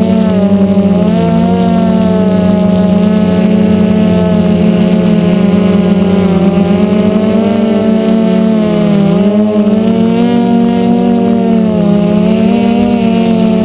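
Brushless motors and propellers of a DJI F450 quadcopter heard from its onboard camera: a loud, steady pitched whine with many overtones that wavers up and down as the throttle changes, dipping briefly about nine seconds in and again near the end.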